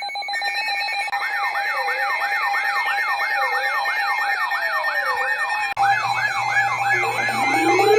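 Electronic emergency sirens sounding over a steady alarm tone as an Emergency Alert System warning opens: a fast rising-and-falling sweep repeating about three times a second over a slower, deeper wail. About two-thirds of the way in the sound shifts abruptly, with a low hum and further siren sweeps layering in.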